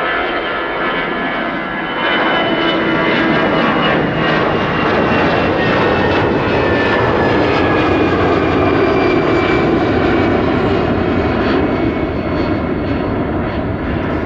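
Airbus A320-214's twin CFM56 turbofan engines at take-off thrust as the airliner climbs out. A steady jet roar swells about two seconds in, with a faint whine that slowly falls in pitch.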